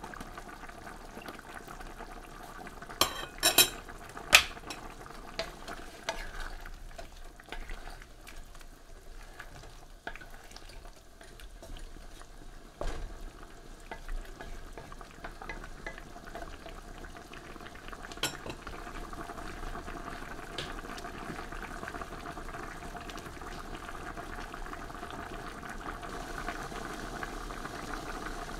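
Chicken caldereta simmering in a wok: a steady bubbling that grows a little louder near the end, with a few sharp clinks of a metal spoon against the pan about three to four seconds in.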